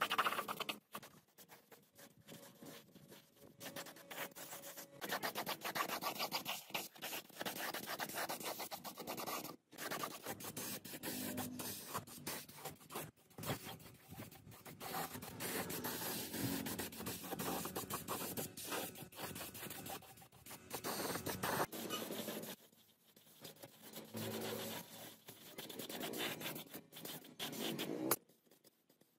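Gravity-feed air spray gun spraying paint: a grainy hiss that starts and stops several times as the trigger is pulled and released.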